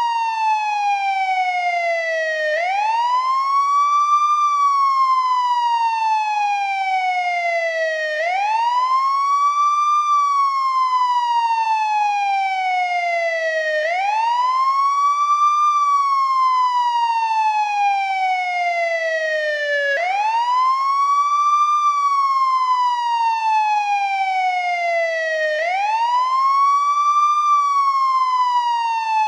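Old-model American ambulance wail siren, its pitch sweeping up quickly and then falling slowly in an even, repeating cycle about every six seconds.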